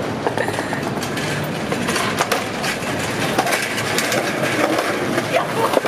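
Skateboard wheels and an empty metal hand truck rolling and rattling over sidewalk paving, with frequent clicks and knocks, against steady city street traffic.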